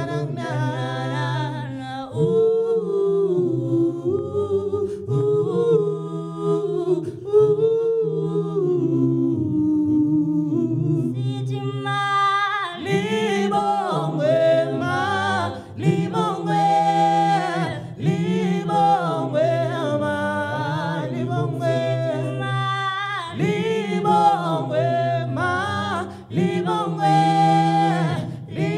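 Three-voice a cappella group, two men and a woman, singing close harmony into microphones over a held low bass part. The singing grows fuller and brighter about twelve seconds in.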